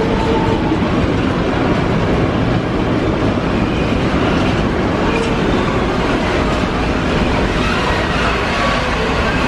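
Container freight train's loaded wagons rolling past, a steady, loud rumble of steel wheels on the rails.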